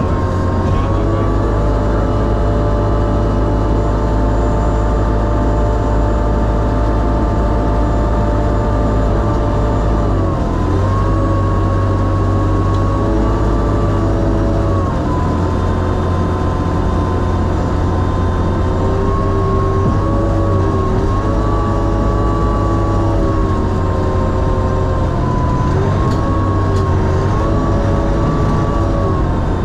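Argo Sherp ATV's Kubota four-cylinder diesel engine running under load, heard from inside the cabin as a steady drone. Several times the engine speed dips briefly and picks up again.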